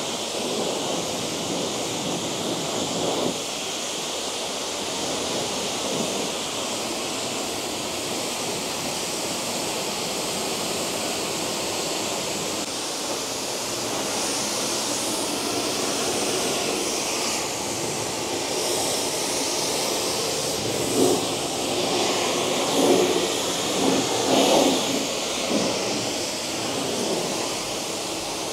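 High-pressure washer jet spraying a mini excavator's bucket, arm and cab windows: a steady hiss of spray with water splashing off metal and glass. A few louder spattering bursts come about three quarters of the way through.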